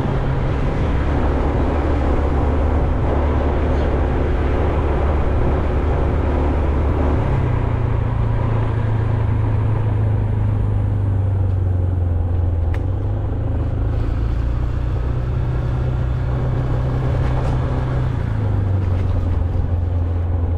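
Motor vehicle on the move: a steady low engine hum over road and wind noise, its pitch shifting three times.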